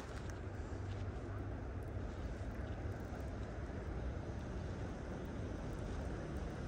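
Steady low rumble of distant road traffic, unchanging throughout.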